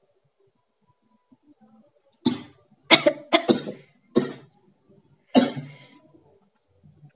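A person coughing: five short, sharp coughs, starting about two seconds in and coming roughly half a second to a second apart.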